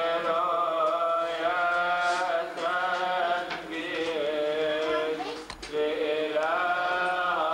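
Coptic Orthodox liturgical chant: voices sing long, drawn-out melismatic notes that glide between pitches, with short breaths about two and a half, three and a half, and five and a half seconds in.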